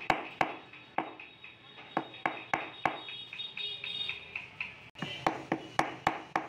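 Small hammer tapping repeatedly on a wooden bed panel during inlay work: light strikes about two to three a second, each with a short metallic ring. There is a brief break about five seconds in.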